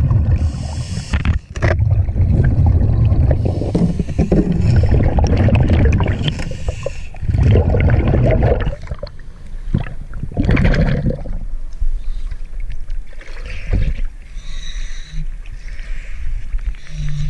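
Scuba diver breathing through a regulator underwater: short hissing inhales and loud bubbling exhales. The bubbling is heaviest in the first half and thinner and patchier in the second.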